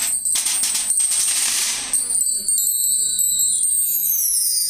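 Bar chimes (a mark tree) swept by hand, starting about two seconds in: a cascade of high metallic pings falling in pitch that goes on ringing. Before it, a short metallic rattle.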